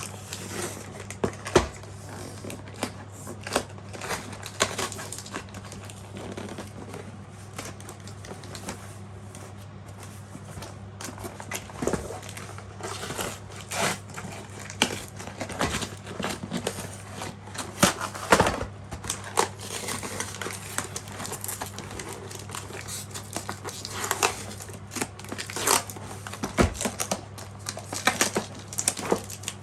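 Cardboard and plastic packaging being handled and pulled open by hand, with irregular crinkling and rustling and now and then a sharper knock, under a steady low hum.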